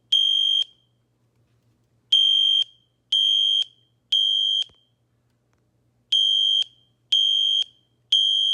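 Edwards Genesis fire alarm horn sound played through a tablet's speaker: a high buzzing tone of about 3,200 Hz with a 50 Hz modulation. It sounds in groups of three half-second blasts about a second apart, with a longer pause between groups, which is the temporal-three evacuation pattern.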